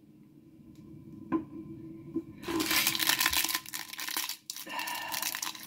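A small plastic blind bag crinkling and tearing as it is pulled open by hand, starting about two and a half seconds in after a single light click.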